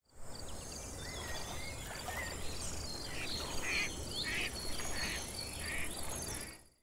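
Wetland nature soundscape: birds chirping and whistling over a steady insect trill, with about five short harsh calls in the middle. It fades in at the start and fades out near the end.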